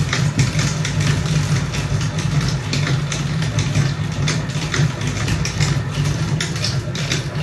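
Hand-cranked stainless steel honey extractor spinning frames of honey: a steady low whirr from the turning drum basket and gearing, with regular ticks a couple of times a second as the crank goes round.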